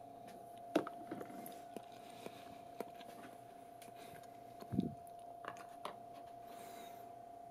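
Wooden chopsticks clicking and tapping against a paper bowl and a paperboard takeout box in a few short sharp knocks, with one low dull thump about two-thirds of the way through, over a faint steady hum.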